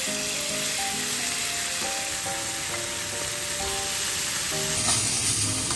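A piece of pike conger (hamo) sizzling steadily as it fries in oil in a nonstick frying pan.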